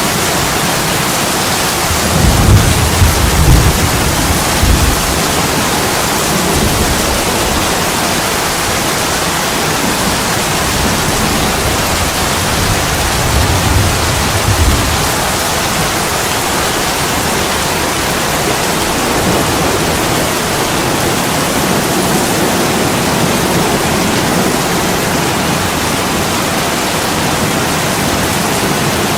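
Heavy rain pouring down in a steady hiss, with two spells of low rumbling, about two seconds in and again near the middle.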